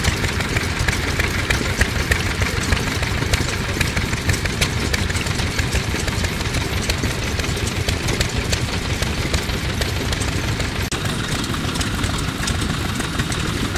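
Yoshida Type D 2.5 hp single-cylinder stationary oil engine running steadily under load, belt-driving a straw rope making machine whose gears and twisting head turn with it.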